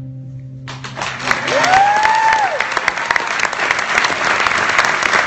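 Audience applauding at the end of a song: the last acoustic guitar chord rings out and, under a second in, clapping breaks out and keeps going. About a second and a half in, someone whistles once, a tone that rises, holds and falls.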